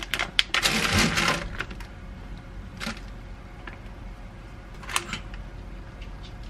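Breaded chicken pieces tipped from a plastic pouch onto parchment paper in a wire air-fryer basket: a burst of crinkling and rattling about a second in, then a few light taps and paper rustles as the pieces are spread out by hand.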